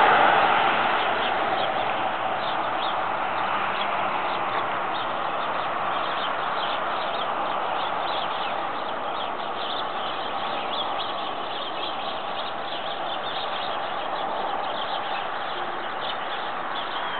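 Small birds chirping in a quick, scattered run of short high notes over a steady rushing background noise.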